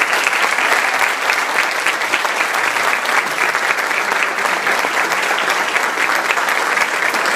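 Audience and choir applauding: a dense, steady clapping of many hands.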